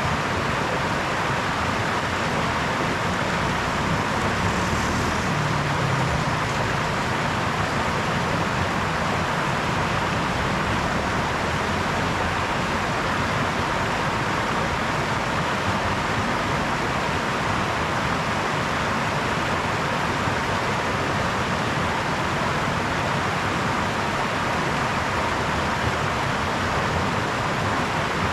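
Small brook babbling steadily, an even rush of water over stones.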